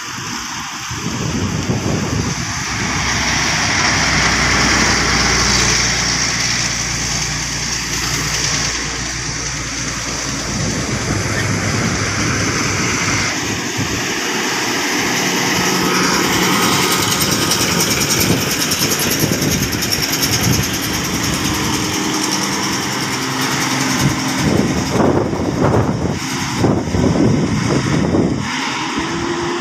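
Heavy diesel engines of buses and a truck pulling hard up a steep, winding highway grade as they pass one after another. There are uneven surges in engine sound near the end.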